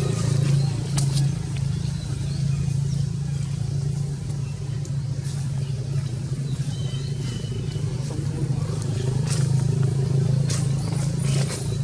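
A steady low engine-like hum throughout, with a few faint clicks and a brief high call about two-thirds of the way in.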